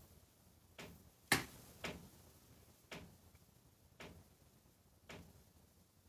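Six faint, sharp clicks, roughly one a second at uneven spacing, the loudest a little over a second in.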